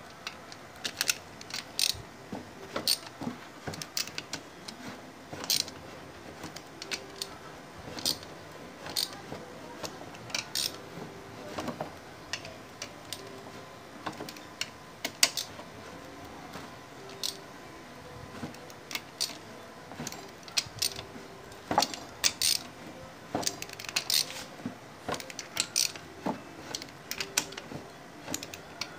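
Irregular sharp metallic clicks and clinks, several a second, from a socket and extension bar being worked on bolts of a motorcycle engine crankcase during assembly.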